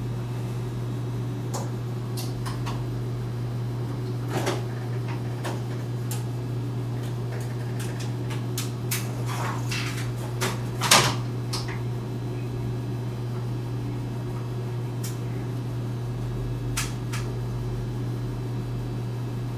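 A steady low hum with scattered clicks and knocks of objects being handled, the loudest knock about eleven seconds in.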